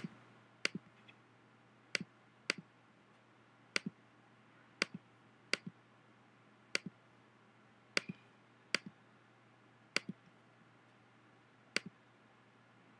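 Computer mouse clicking about a dozen times, roughly once a second or so. Most clicks are a sharp press followed a split second later by a softer release, over a faint steady low hum. The clicks come from picking colours from a palette and filling shapes with a paint-bucket tool.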